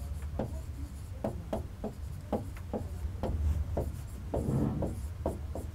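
Stylus tapping and scratching on a pen tablet as numbers are handwritten: a string of irregular light clicks, roughly two or three a second, with a short scratchy stroke a little past the middle. A steady low hum underneath.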